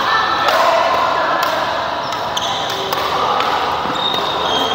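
Badminton rackets striking the shuttlecock in a rally, several sharp hits about a second apart, with voices in the background echoing in a large hall.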